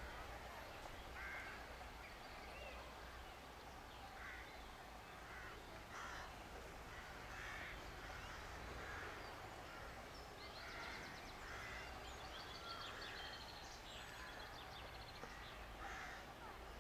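Faint repeated caws of crows, a short call every second or so, with a brief rapid rattling chatter about eleven seconds in.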